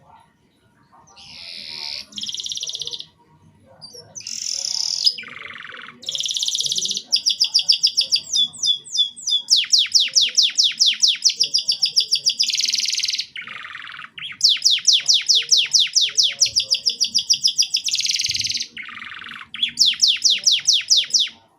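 Domestic canary singing: a run of high, clear phrases of buzzy notes and fast rolling trills of about ten notes a second, broken by short pauses.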